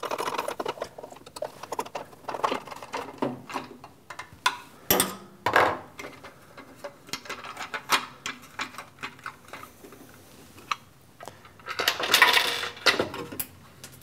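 Screwdriver clicking and the plastic front housing of a drill press rattling and scraping as its screws are backed out and it is pulled off. Near the end comes a louder clatter, a screw dropping away.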